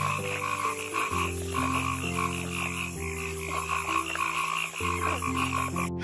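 Frogs croaking in a steady, rhythmic pulsing chorus, over background music of slow sustained chords.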